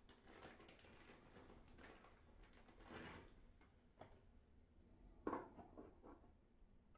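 Near silence with faint rustling of a small plastic packet being handled, and a few soft knocks, the sharpest about five seconds in.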